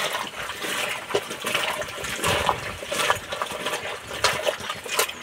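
Hands sloshing and rubbing cut taro stalks in water in a metal pail: irregular splashing with sharp slaps of water.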